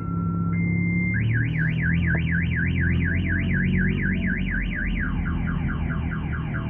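Electronic car alarm siren cycling through its patterns: a steady tone, then a switch between two pitches, then a fast warble of about four cycles a second. About five seconds in, it changes to repeated falling sweeps.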